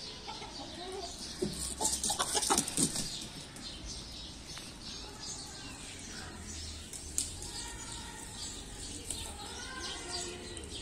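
Chickens and pigeons feeding together, with a brief flurry of wing flapping about two seconds in, the loudest sound here, and soft bird calls later on.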